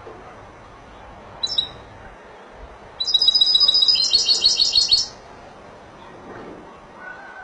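Caged European goldfinch singing: a short high call about a second and a half in, then a loud two-second phrase of rapid, repeated high notes.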